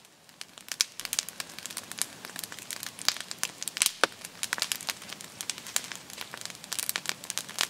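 Wood campfire crackling, with irregular sharp pops several times a second, as it burns on soaking-wet wood.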